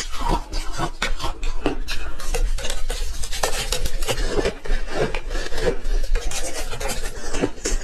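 Ice being crunched and chewed close to the microphone: a dense, unbroken run of crisp cracks and grinding.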